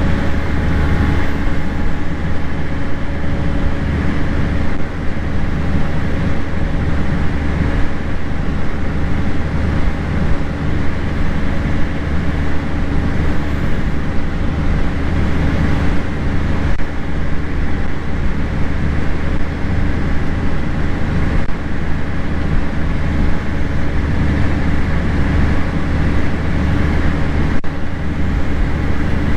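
Heavy farm machinery running steadily during silage harvest, a continuous engine hum with a deep low drone that holds steady throughout.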